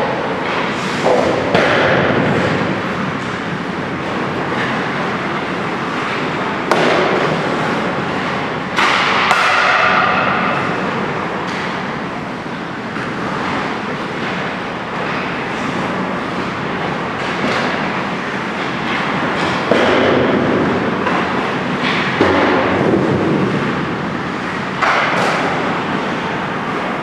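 Ice hockey shooting drill: a steady scraping hiss of skates on the ice, broken by sharp knocks of sticks and pucks every few seconds, with occasional shouts.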